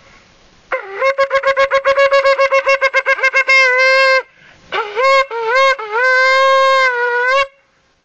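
A curled ram's-horn shofar being blown: after a moment of hiss, a fast run of short pulsing blasts on one note, about six a second, then a held note, three short blasts, and a long held note that cuts off near the end.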